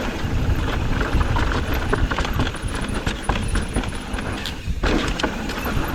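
Mountain bike descending a rough dirt trail at speed: frame and parts rattling, tyres knocking over rocks and ruts in quick uneven strikes, over a steady low wind rumble on the microphone.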